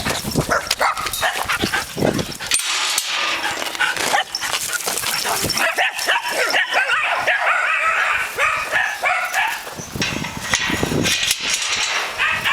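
Several dogs barking and yipping, with a dense run of short high yips in the middle.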